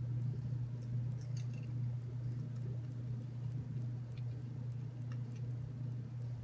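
A few faint, scattered ticks of small screws and a hand screwdriver working into a black plastic TurtleBot3 waffle plate, over a steady low hum.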